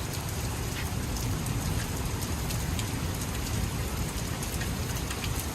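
Heavy rain pouring steadily, with scattered sharp ticks of hailstones striking, as a thunderstorm keeps dropping hail.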